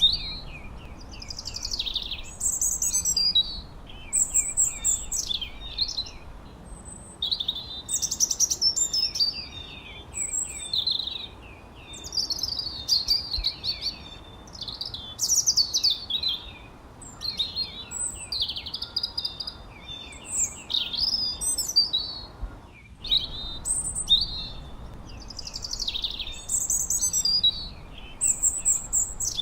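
Songbirds chirping and whistling in quick, high, gliding phrases that follow one another almost without pause, over a faint steady background hiss.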